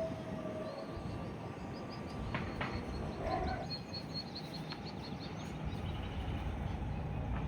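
Birds chirping in quick high trills over a steady low outdoor rumble.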